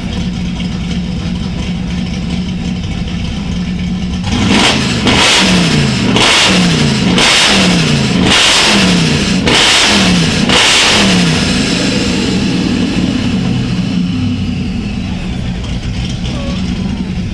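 Ford Mustang engine idling, then blipped repeatedly about four seconds in: a run of quick revs, roughly one a second, each falling back, before it settles to idle again.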